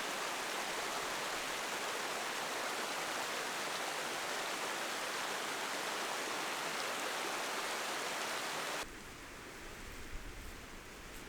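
Steady rushing of falling water, an even hiss with little low rumble. About nine seconds in it cuts abruptly to a quieter scene with faint low wind gusts.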